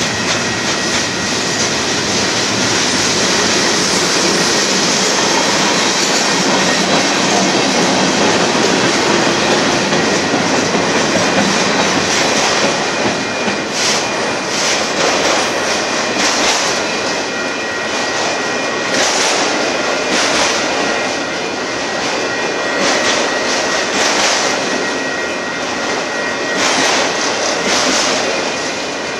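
Freight cars of a Union Pacific merchandise train rolling steadily past, steel wheels rumbling on the rails. From about halfway through, the wheel sets clack over the rail joints and crossing in quick groups.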